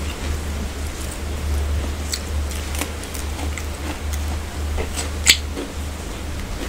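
Eating by hand: fingers squishing and mixing rice and curry, chewing, and small scattered clicks, with one sharper click about five seconds in. A steady low hum runs underneath.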